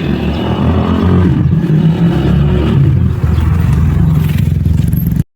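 Motorcycle engine running and revving, cut off abruptly near the end.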